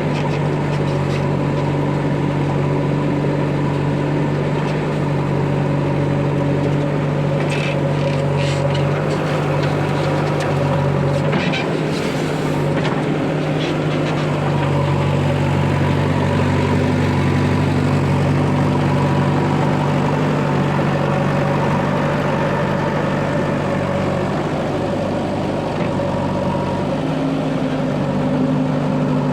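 Heavy diesel engine running steadily, its note shifting with load several times. A few short knocks and clatters sound in the first half.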